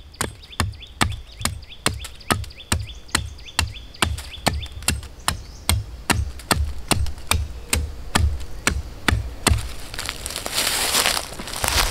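A steady run of sharp knocks, about three a second, each with a dull low thud. A short rushing noise comes near the end.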